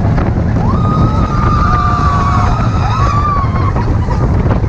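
Expedition Everest roller coaster ride from a seat on the train: a steady loud rumble of the train on the track with wind on the microphone. Over it, riders scream, one long scream rising about half a second in and held for around two seconds, then a shorter one near the three-second mark.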